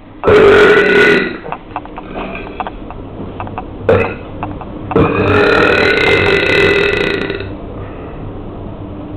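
A person belching loudly three times: a burp about a second long near the start, a short one around four seconds in, and a long, drawn-out one of about two and a half seconds from five seconds in.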